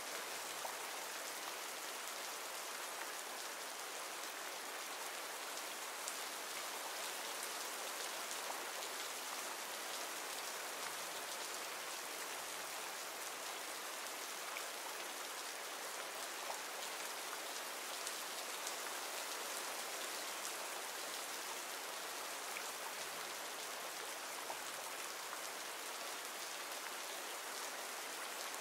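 A rain ambience recording: steady rain falling, an even hiss with a few faint drop ticks scattered through it.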